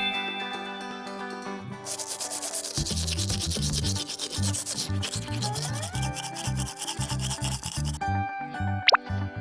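A steady, scratchy rubbing noise that starts about two seconds in and stops near the end, over light background music.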